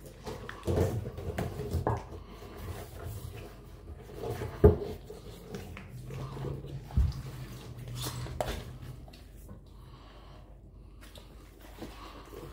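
Latex rubber suit rubbing and creaking as the wearer shifts about on hands and knees on a rubber floor mat, with several thumps of gloved hands and knees. The sharpest thump comes about a third of the way in. A low steady hum runs for a few seconds after the middle.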